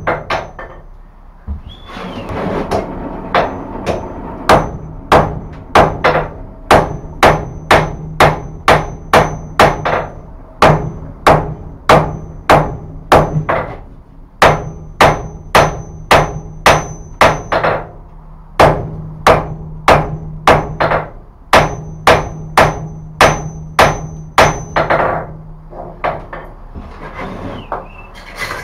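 Hand hammer striking a red-hot billet on the anvil during a forge weld of rasp steel, high-carbon wagon tire and wrought iron: sharp, ringing blows about two a second, with a few short pauses between runs.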